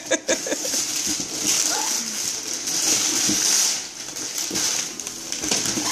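Wrapping paper being torn and ripped off large gift boxes by hand: a continuous crackling, rustling tear, loudest for the first four seconds and then easing off.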